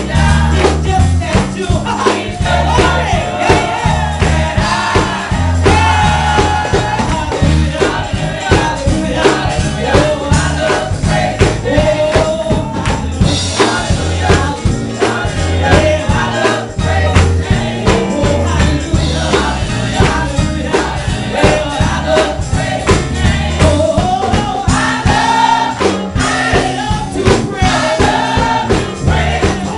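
Gospel praise song sung by a group of women, with rhythmic hand-clapping over a low bass line.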